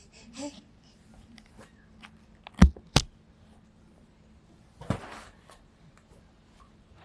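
Two sharp knocks about half a second apart, a few seconds in, then a brief rustle, over quiet room handling noise.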